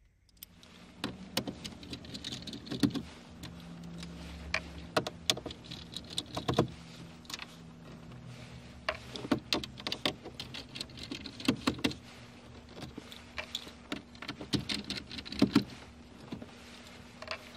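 Hand screwdriver taking out the radio's mounting screws in a car dashboard: scattered clicks and small rattles of tool, screws and a plastic screwdriver bit holder, over a steady low hum.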